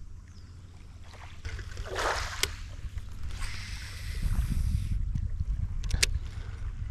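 Wind rumbling on the microphone, with a short rushing swell about two seconds in and two sharp clicks, one about two and a half seconds in and one about six seconds in.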